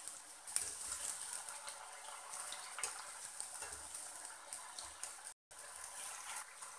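Maggi-noodle pakodas deep-frying in hot oil in a kadai: a steady sizzle with small crackles and occasional faint clicks as the wire skimmer turns them. The sound cuts out for an instant about five seconds in.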